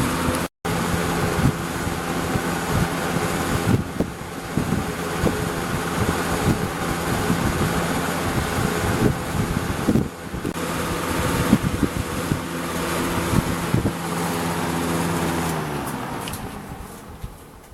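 1988 Lakewood Model 223 20-inch box fan running, its McMillan motor giving a steady hum under the rush of air. Near the end the hum drops in pitch and fades as the fan winds down.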